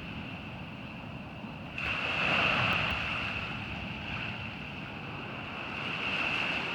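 Ocean surf breaking on a beach: a wave crashes and washes in about two seconds in, and a smaller swell comes near the end, over a steady hiss of surf and a constant high-pitched tone.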